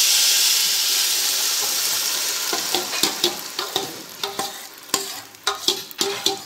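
Jackfruit puree hitting hot ghee in a metal pan, sizzling loudly at first and fading over several seconds. From about halfway, a metal spoon scrapes and knocks against the pans.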